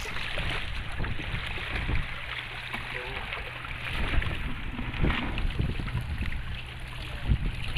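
Wind buffeting the microphone over the wash of seawater, with irregular low thumps and a steady low hum underneath.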